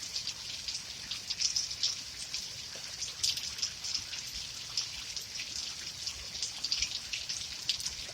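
Steady rain falling, with many separate drops ticking and pattering irregularly on a nearby surface over a continuous hiss.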